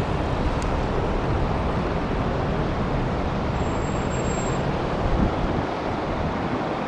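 Wind blowing over the microphone with a steady rush of road traffic beneath it.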